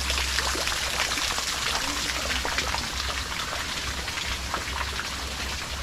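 Steady patter of rain, a hiss dense with many small drop ticks, with a low rumble underneath.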